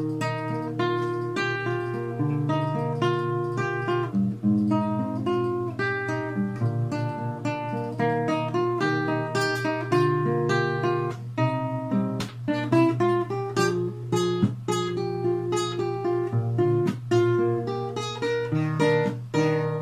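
Acoustic guitar played solo in a fast, lively run of plucked notes mixed with strums.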